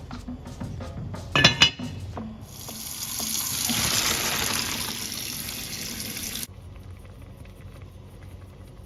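A kitchen tap runs into a sink for about four seconds, then is shut off abruptly. There is a brief clatter just before the water starts.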